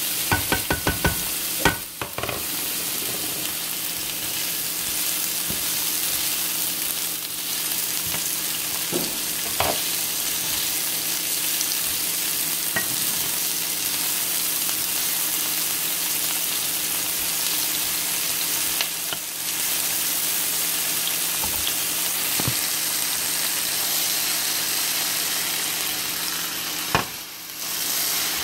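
Diced onions sizzling in olive oil in a nonstick frying pan as they sweat, with a steady frying hiss. A utensil stirs them, making a few clicks against the pan, mostly in the first couple of seconds.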